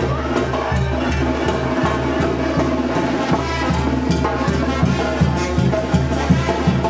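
Music with a steady, repeating bass beat and percussion.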